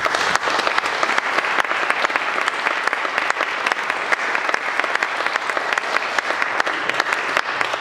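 Small audience applauding, many hands clapping at once; it breaks out suddenly and carries on steadily.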